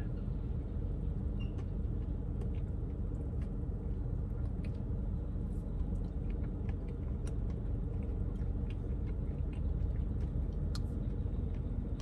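Steady low rumble inside a parked car's cabin, as of its engine idling, with faint scattered clicks and mouth sounds of someone eating soft-serve ice cream from a plastic spoon.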